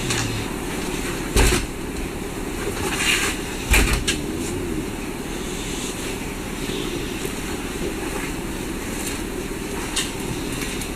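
Steady low rushing hum of background machinery such as a ventilation fan, with two sharp knocks about a second and a half and four seconds in, and a lighter one near the end.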